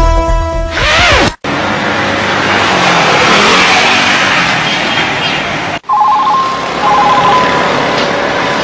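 Steady outdoor roadside noise with traffic going by. About a second in there is a falling swoosh. From about six seconds in, a mobile phone's short stepped electronic beeps sound over it.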